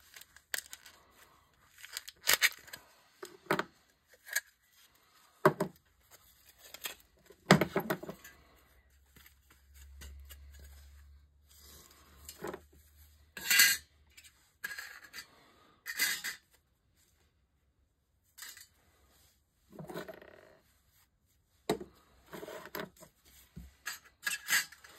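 A weighted sterling silver candlestick being broken apart by hand: the hard white filler cracks and crumbles, and thin sterling and filler pieces clink and clatter on the table in irregular bursts, with quieter pauses between.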